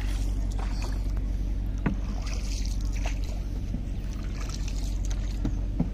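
Wooden country boat being paddled: a single-bladed wooden paddle swishing and splashing through the river water stroke by stroke, with a few light knocks, over a steady low rumble.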